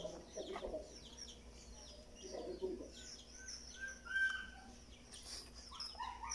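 Chickens clucking and small birds chirping in many short calls, over a faint steady hum.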